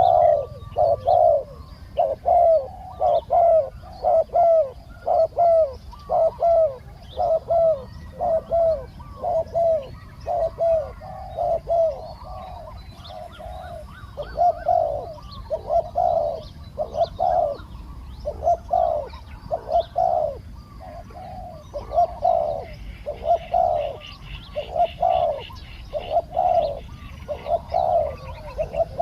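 Spotted doves cooing, a decoy bird and a wild dove calling back and forth in a long run of repeated low coos grouped into phrases with short pauses. Faint chirps of small birds sound in the background.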